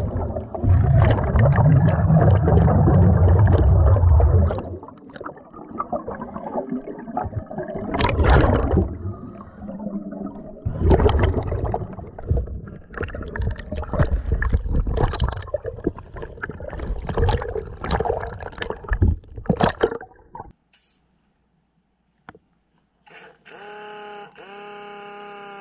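Underwater, a pneumatic drill run off a scuba regulator blows its exhaust air out as a dense, loud bubbling with a deep rumble for about four seconds. It stops, and irregular bubbling and water noise follow in uneven bursts.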